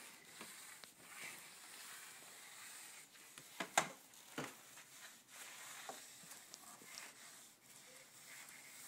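Faint swishing of a Swiffer dry-cloth sweeper pushed over a tile floor under a table, with a few light knocks, the loudest about four seconds in.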